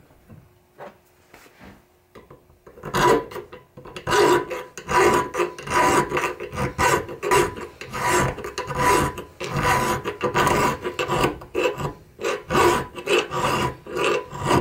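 Half-round steel file rasping back and forth inside the eye of a steel ball peen hammer head held in a bench vise, about two strokes a second, starting about three seconds in. The file is taking down the mushroomed top of the eye.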